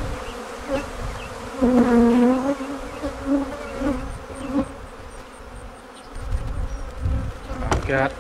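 Honey bees in a robbing frenzy buzzing close past the microphone, each passing bee a wavering drone that rises and falls in pitch; the buzz is loudest about two seconds in.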